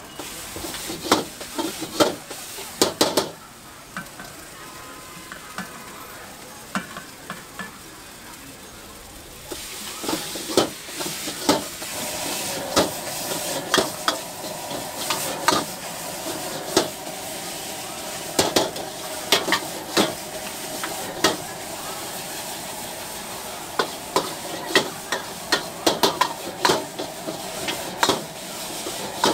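Metal ladle and spatula repeatedly striking and scraping a large iron wok during stir-frying, over oil sizzling. The sizzling grows much louder about ten seconds in, with the clangs continuing.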